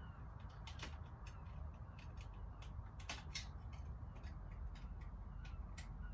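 Irregular small clicks and ticks, about a dozen, from wire and tools being worked into the screw terminals of a two-way light switch, over a steady low room hum.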